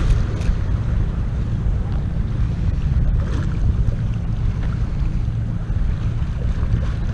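Steady wind rumble buffeting the microphone, with choppy sea water washing below.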